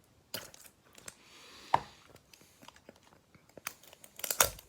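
Scattered clicks, taps and a light rustle from a Pokémon Dusk Ball product's packaging as it is handled and pried at. There is one sharp click a little under two seconds in and a few knocks near the end.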